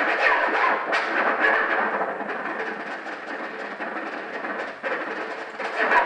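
Live ensemble performance: a dense, noisy wash of sound with irregular sharp accents and no clear melody or steady beat.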